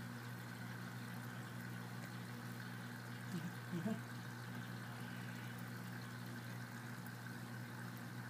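Steady mechanical hum of a fish-tank pump, with water faintly moving and a brief vocal sound a little over three seconds in.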